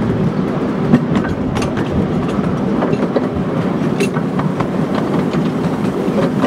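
Miniature railway train running along the track: a steady rumble with scattered sharp clicks of the wheels over the rail joints.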